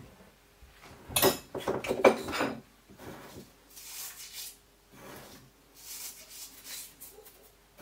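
Flour being scooped with a measuring cup and tipped into a stainless steel stand-mixer bowl: a run of scraping and knocking about a second in, then several lighter scrapes and taps.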